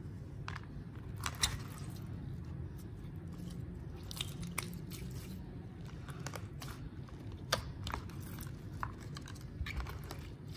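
Hands kneading and stretching clear slime, giving irregular sharp wet clicks and crackles over a steady low background noise.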